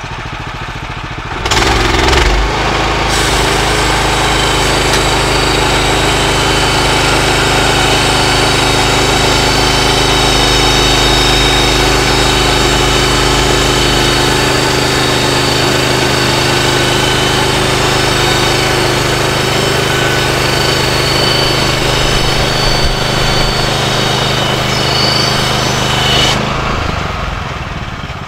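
Woodland Mills HM126 band sawmill's gas engine brought up to full throttle about a second and a half in. It runs steadily under load while the band blade saws along the log, with a high whine over the engine note. Near the end it drops back to idle.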